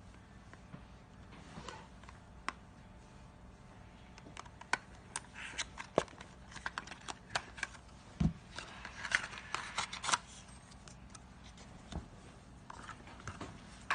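Irregular small clicks, taps and rustles of something small being handled, busiest in the middle, with one dull low thump partway through.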